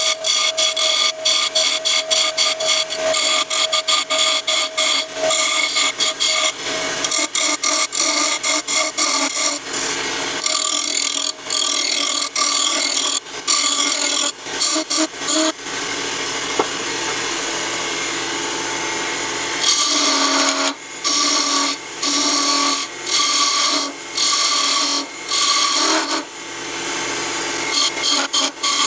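Wood lathe spinning a thin wooden blank while a small hand-held turning chisel cuts into it: a hissy scraping of the cut that breaks off and starts again many times as the tool is lifted and pressed back in. In the second half it comes as a run of short separate cuts, about one a second.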